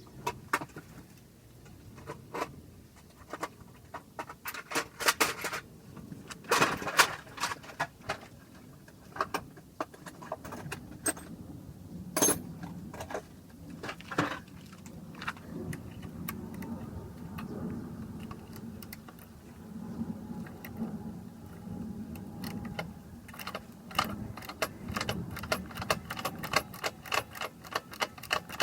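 Irregular metallic clinks and clatter, like tools and metal parts being handled, with a faint low hum in the second half.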